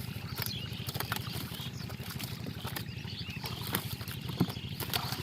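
Boat on the water: a steady, evenly pulsing low rumble with scattered knocks and clicks.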